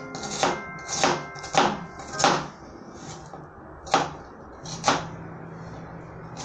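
A kitchen knife striking a plastic cutting board while dicing an onion: about seven sharp chops, roughly one a second, at an uneven pace.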